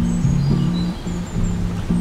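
Background guitar and piano music, its low notes changing every few tenths of a second, with faint bird chirps laid over it.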